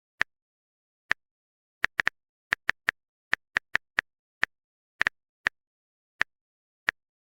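A run of about eighteen short, sharp clicks at an uneven pace, roughly two or three a second with some in quick pairs, with dead silence between them.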